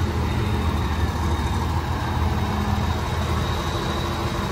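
Diesel engines of farm tractors, a red Massey Ferguson and a blue Landini closest, running with a steady low rumble as they wait and creep along in a line.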